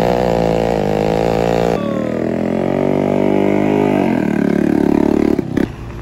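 Engines of road machinery and small motorbikes running, heard as a string of short clips: the engine note changes abruptly about two seconds in, falls in pitch around four seconds, then turns into a fast pulsing chug that cuts off near the end.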